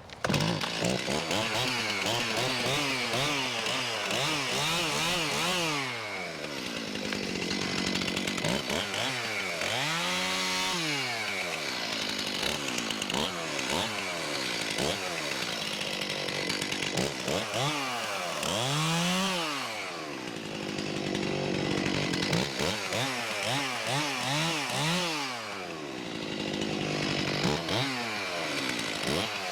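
Stihl two-stroke chainsaw running, its engine pitch repeatedly climbing and dropping back as it revs and bogs while cutting limbs and log sections from a fallen red oak.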